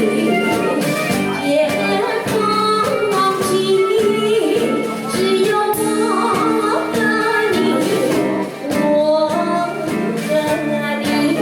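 Music: a woman singing over an instrumental backing track with a steady beat.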